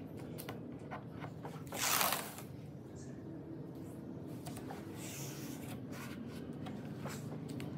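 Hands handling a long metal ruler on a planed pine tabletop: light taps and rubbing of metal and skin on wood, with one louder scraping swish about two seconds in, over a steady low hum.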